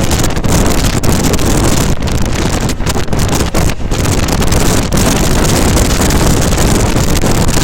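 Express train running at speed, about 110 km/h: a steady, loud rush of wind buffeting the microphone over the rumble of coaches on the track.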